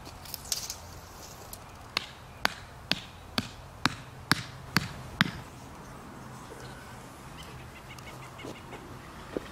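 Wooden garden stake being hammered into the soil: a run of about eight sharp knocks, about two a second, that then stop.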